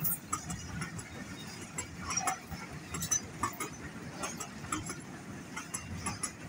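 Loaded oil tank wagons of a freight train rolling past on the rails: a steady low rumble of wheels on track with frequent irregular metallic clicks and clanks.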